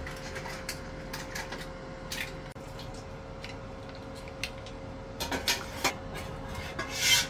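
Cooked mussels clattering as they are tipped from a stainless-steel stockpot onto a metal platter: shells knocking against each other and the dish in scattered clicks, with a quick run of them about five seconds in. A faint steady hum sits underneath, and a brief louder noisy burst comes near the end.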